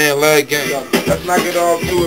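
A man rapping a verse over a hip hop beat, his voice quick and rhythmic with a low bass under it.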